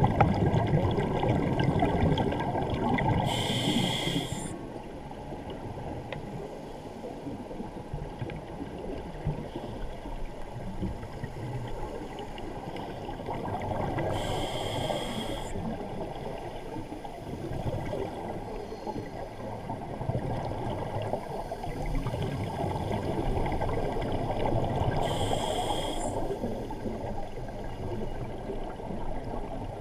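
Scuba diver's breathing heard underwater through the camera housing: a steady bubbling rumble from exhaled bubbles, broken by three short regulator hisses on each inhalation, about eleven seconds apart.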